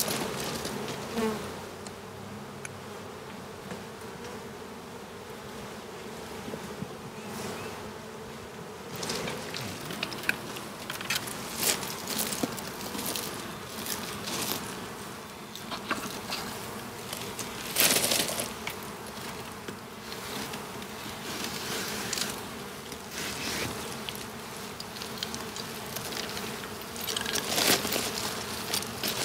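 Honey bees buzzing around the hives in a steady drone. Scattered short knocks and rustles break in over it, the loudest about 18 seconds in and another cluster near the end.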